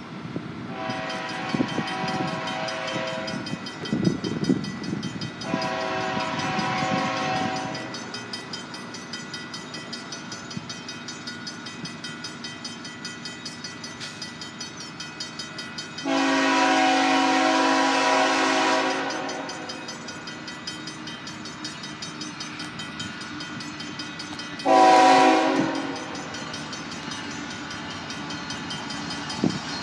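Locomotive air horn sounding several steady pitches together as a CN freight approaches: two long blasts, a third louder long blast, then a short blast, the start of the long-long-short-long grade-crossing signal. A low diesel rumble grows as the train draws near.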